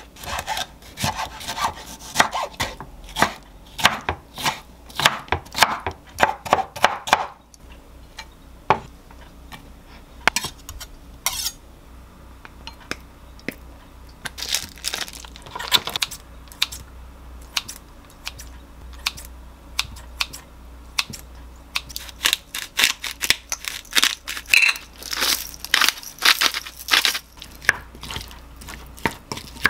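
Kitchen knife chopping tomato on a wooden cutting board, a fast run of taps. Later a wooden spoon stirs chopped vegetables in a glass bowl, clicking and scraping against the glass.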